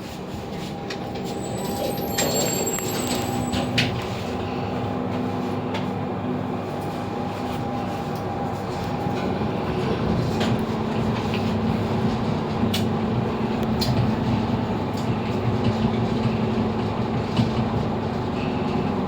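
1999 Fujitec passenger lift car travelling upward, heard from inside the car: a steady rumble with a low hum, and a few clicks in the first few seconds.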